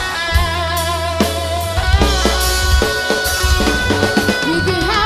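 Rock band playing an instrumental passage: a sustained, wavering lead guitar line over bass and a drum kit.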